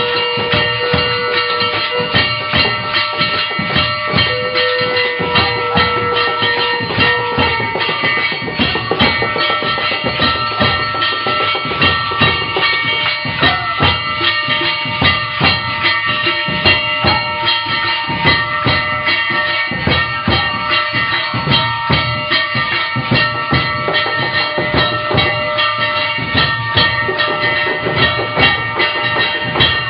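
Music: fast, dense drumming over several steady held notes.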